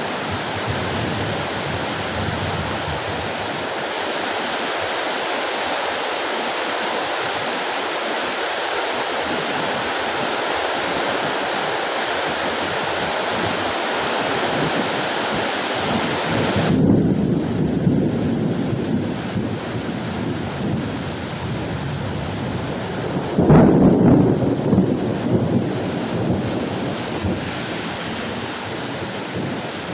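Heavy rain pouring as a steady hiss during a thunderstorm. Thunder rumbles a little over halfway through, just as the hiss suddenly thins, and a sharper thunderclap comes about six seconds later and rolls on for a few seconds.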